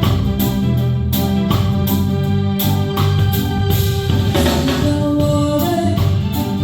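Live reggae band playing an instrumental passage: sustained organ-like keyboard chords over bass guitar and a steady drum beat.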